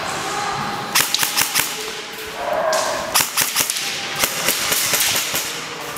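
Airsoft rifle (a custom baby M4) firing rapid single shots as sharp cracks: a quick run of about five shots about a second in, then a longer run from about three seconds in.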